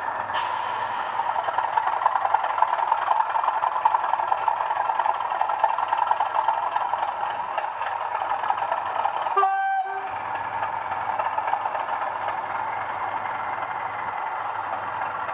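Sound-fitted model Class 37 diesel locomotive running, its small speaker playing a steady diesel engine sound. A short horn note sounds a little past halfway.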